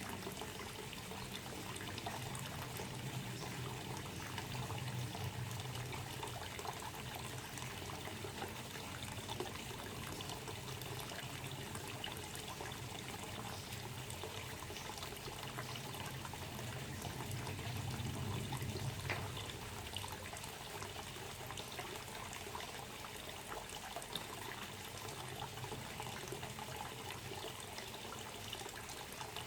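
Water trickling and pouring steadily, a continuous splashing flow with a low rumble underneath.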